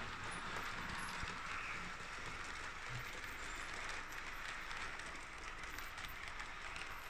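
Märklin model train coaches rolling past on the track: a steady rolling rush of small metal wheels on the rails, with faint clicks.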